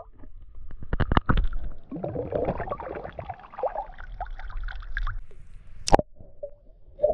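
Water pouring and gurgling out of a small round glass flask and splashing onto ice, with a couple of sharp knocks about a second in and a single sharp click near the end.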